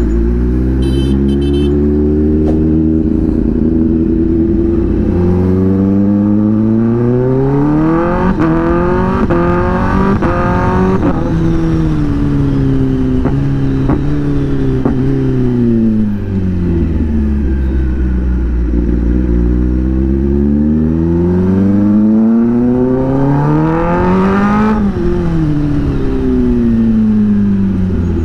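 Kawasaki ZX-10R's inline-four engine through an SC-Project exhaust, accelerating up through the gears in stepped rises in pitch to a peak about ten seconds in, then winding down. A few sharp cracks come as it slows, and it accelerates hard again and eases off near the end.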